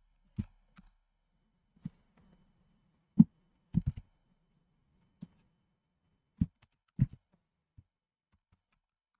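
Scattered clicks and taps of a computer mouse and keyboard, about eight in all at uneven spacing, the loudest about three seconds in, as commands are copied from a browser and pasted into a terminal.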